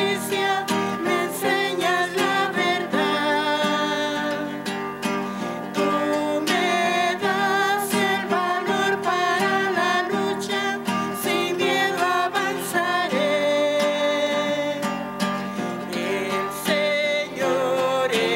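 Acoustic guitar strummed in a steady rhythm, accompanying a voice singing a hymn.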